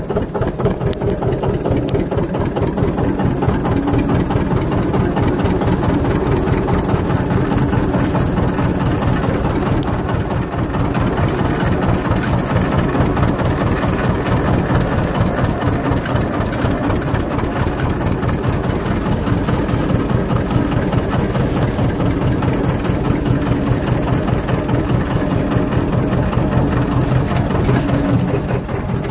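John Deere tractor engine running steadily under way, heard from the driver's seat with its exhaust stack just ahead.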